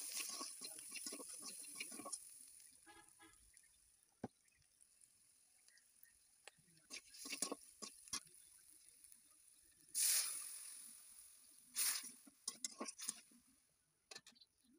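Spatula scraping and stirring sliced onions and green chillies frying in oil in a karai, with scattered knocks against the pan. About ten seconds in, water is poured into the hot pan and sets off a loud sizzling hiss that dies away over a second or so, followed by a second, shorter hiss.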